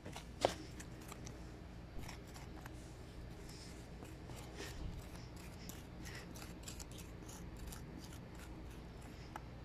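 Metal spoon digging into dry sandy soil: a run of short scrapes and scoops, with one sharper click about half a second in.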